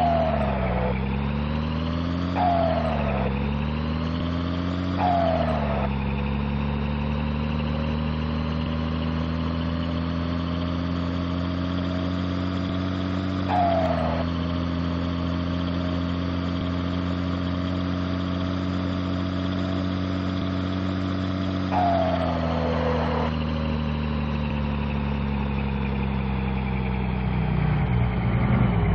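Mercedes-Benz 1944 truck's turbodiesel idling with a high turbo whistle from a comb fitted in the turbo. The engine is blipped five times: the revs rise, then drop off with a short rush of air each time.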